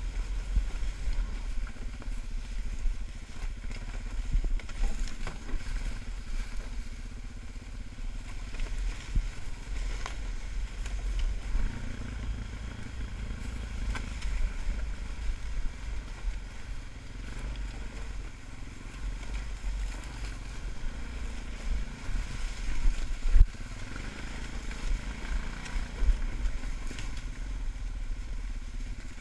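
ATV engine running at low speed while riding over rough, leaf-covered forest ground, with occasional knocks and rattles from the bumps, the sharpest about 23 seconds in.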